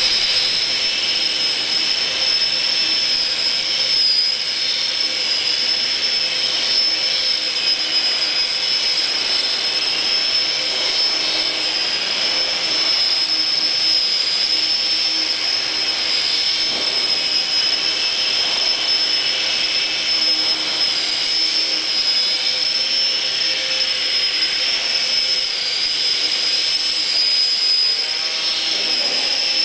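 Motor and propeller of a small radio-controlled aerobatic model plane hovering nose-up. It gives a steady high-pitched whine that dips and rises slightly in pitch with the throttle.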